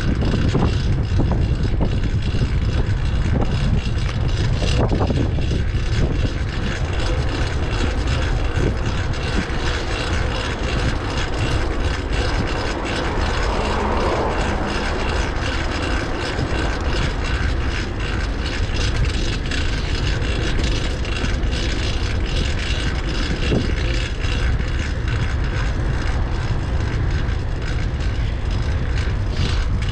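Riding a fixed-gear bicycle: wind rumbling on the microphone over the steady whir of the chain on a new, loud rear cog. There is a brief swell of noise midway.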